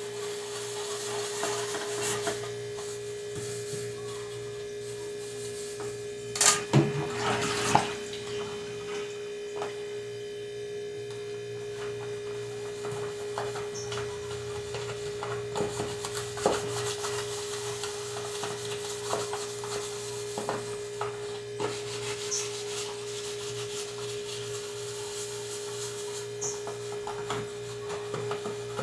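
Plastic food containers being scrubbed and handled by hand at a sink, with rubbing and small clicks and a brief clatter of knocks about seven seconds in, over a steady electrical hum.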